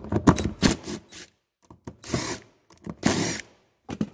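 Power drill with a socket running in short bursts, backing out the 5/16 bolts that hold the sprocket onto a Tru Count clutch. There are two main bursts of about half a second each, roughly a second apart.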